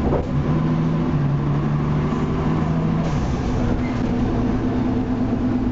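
Leyland Lynx Mk2 bus's Cummins L10 engine and ZF Ecomat automatic gearbox running under way, heard from inside the passenger saloon. There is a steady drone, and a lower hum starts about half a second in, rises slightly about a second in, and drops away about three seconds in.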